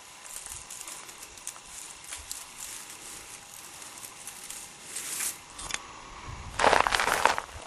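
Dry grass and straw rustling and crackling, with scattered small clicks, as a stick pokes through the litter at the base of a rock. A louder burst of rustling comes near the end.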